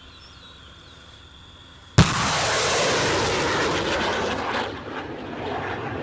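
A HIMARS rocket launch: a sudden blast about two seconds in, then a loud, steady rushing noise from the rocket motor that drops in level after a few seconds and carries on more faintly.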